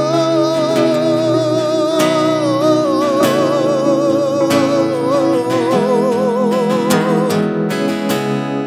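Live worship music: a singer holds a long wordless note with wide vibrato, stepping down in pitch and breaking off about seven seconds in, over acoustic guitar strums and sustained Nord Stage 3 keyboard chords.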